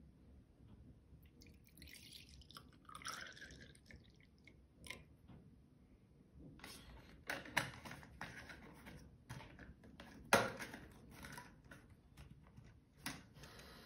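Rust remover poured from a plastic bottle into a small glass, a short faint pour whose pitch rises as the glass fills. After it, the foam on the liquid crackles and pops in scattered small clicks.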